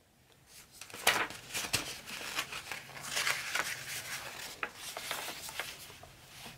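A picture book's page being lifted and turned by hand: paper rustling and crinkling with a few sharp crackles, dying away near the end.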